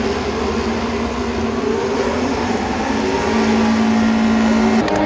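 Formula 1 cars' 1.6-litre V6 turbo-hybrid engines running as the field sets off, a steady drone made of several held tones. One tone grows strong about three seconds in, and the sound changes abruptly just before the end.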